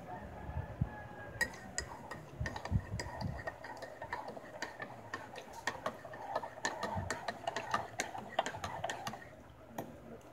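A person eating rice by hand close to the microphone: chewing and wet mouth clicks, with many short, irregular ticks and small knocks.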